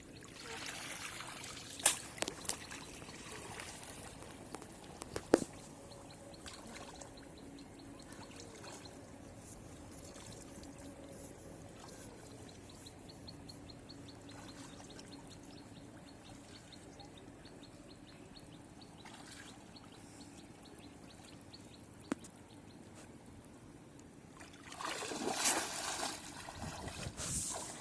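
Shallow water in a flooded field trickling and sloshing, with a few sharp knocks and a louder burst of splashing near the end.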